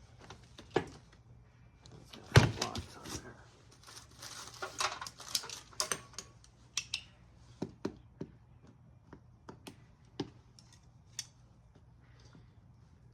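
Hands working at a rolling tool set case to get it open: an irregular run of clicks and knocks, the loudest a sharp knock about two and a half seconds in, with a busy patch of clicks a couple of seconds later.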